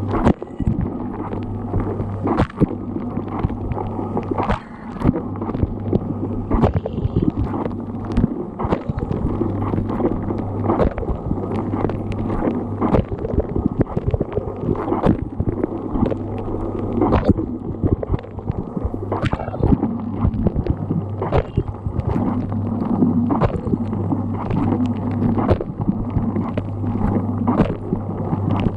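Dishwasher running its wash cycle, heard from inside the tub: the pump hums steadily under spraying, gurgling water, with a sharper splash of spray about every two seconds.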